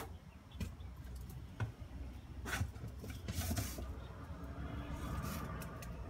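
Camera handling noise: scattered knocks, clicks and rubbing as the camera is moved about and repositioned, with a brief hissy rustle near the middle, over a steady low outdoor rumble.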